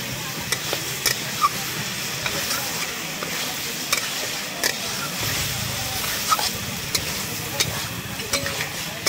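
Pork pieces sizzling and frying in a hot iron kadai while a spatula stirs them, with sharp, irregular clicks and scrapes of the spatula against the pan over a steady hiss.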